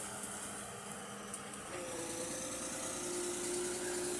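Excavator engine running steadily, with a faint steady whine, another tone joining it about two seconds in.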